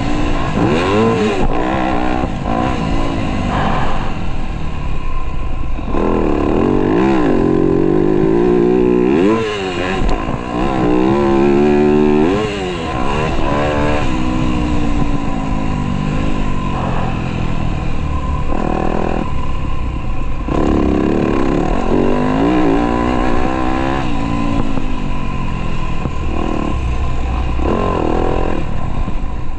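Motocross dirt bike engine being ridden hard, its pitch climbing and dropping back again and again as the throttle is opened and closed, with a couple of brief let-offs.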